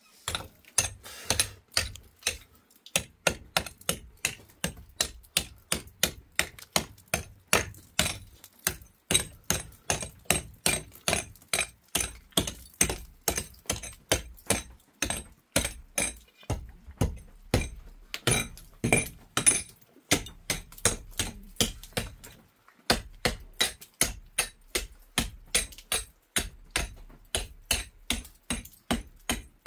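Steady, even knocking blows, about two to three a second, with short breaks near 9 and 23 seconds.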